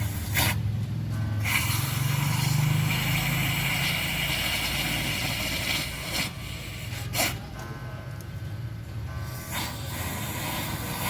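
Aerosol can of foam carbon cleaner hissing in spurts as it is sprayed into the engine's spark plug holes until the can runs empty, to clean carbon from the combustion chambers and piston crowns. The longest spray runs about four seconds, followed by shorter bursts, over a steady low rumble.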